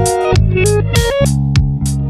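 Instrumental background music with guitar and bass over a steady drum beat.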